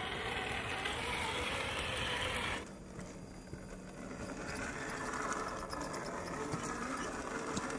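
Drivetrain of a Traxxas TRX4 RC crawler truck whining as it crawls over rock: the electric motor and gears give a faint steady whine. For the first two and a half seconds a louder rushing noise covers it, which cuts off suddenly.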